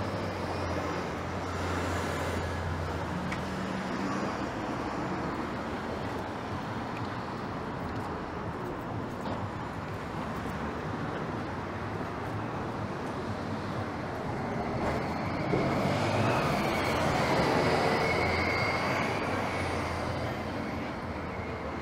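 City street traffic: vehicles passing along the avenue with a low engine hum. A heavier vehicle passes loudest about three-quarters of the way through, with a faint high-pitched whine.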